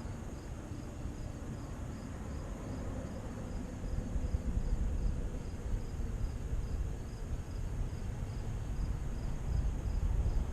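Insects chirping in a steady rhythm, about two high chirps a second, over a low, uneven rumble of outdoor background noise.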